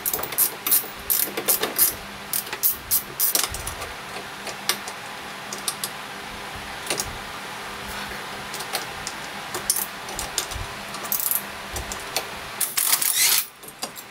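Ratcheting spanner clicking as the bolts of brass steering-cable pulley blocks are tightened: quick clicks at first, then sparser ones. Near the end comes a short burst from a cordless drill driving a bolt.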